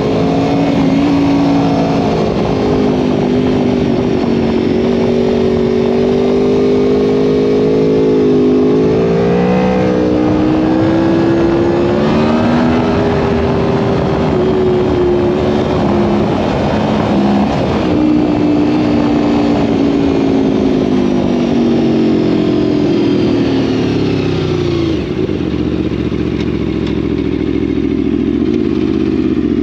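Aprilia Tuono V4 1100 Factory's V4 engine and exhaust heard from the rider's seat under way, its pitch rising and falling again and again with throttle and gear changes, over wind rush on the microphone. Near the end the engine note falls and settles lower and steady.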